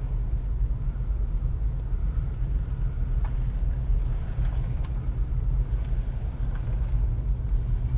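Steady low rumble of a car's engine and road noise heard from inside the moving car's cabin, with a few faint ticks.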